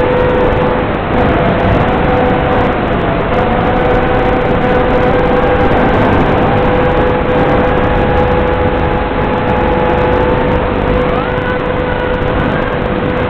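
FPV quadcopter's motors whining under heavy hiss from the analog video feed, with a steady hum beneath. The whine wanders in pitch with the throttle and climbs sharply about eleven seconds in.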